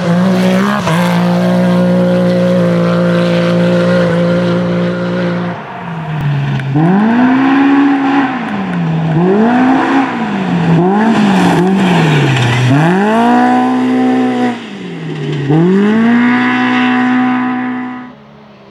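Rally car engine held at high revs for about five seconds, then revving up and down roughly once a second with the throttle and gear changes, then held high again before falling away near the end.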